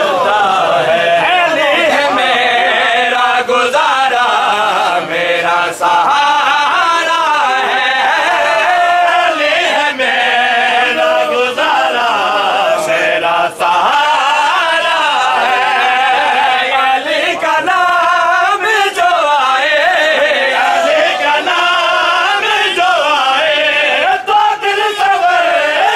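A group of men chanting a noha, a Shia mourning lament, together in a steady sung recitation.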